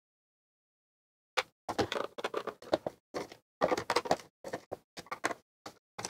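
Silent for the first second and a half, then a screwdriver backing screws out of the synthesizer's bottom panel: a run of short, irregular clicks and scrapes.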